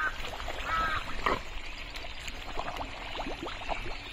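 Wet mud squelching and slapping, with small splashes in shallow muddy water, a string of short irregular slaps. Two short pitched calls come in the first second.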